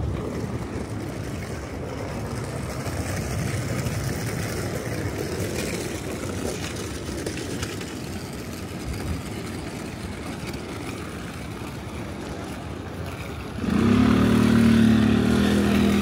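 City traffic noise, a steady rushing hum, until about fourteen seconds in, when a loud vehicle engine or motor starts up with a steady low-pitched drone and keeps going.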